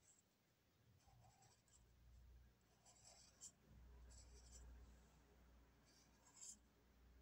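Faint scratching of a felt-tip marker being stroked back and forth across paper, in several short spells of strokes, with two sharper ticks, one about halfway through and one near the end.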